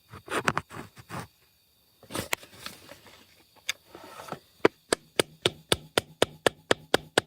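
Hammer blows on a screwdriver driven down between a cylinder sleeve and the engine block, chipping the old sleeve loose. A few scattered knocks come first, then from about halfway a steady run of sharp blows, about four a second.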